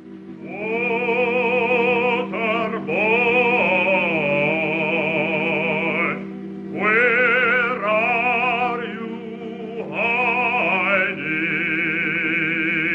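Operatic solo singing with strong vibrato over a sustained accompaniment, in three phrases with short breaks about six and ten seconds in.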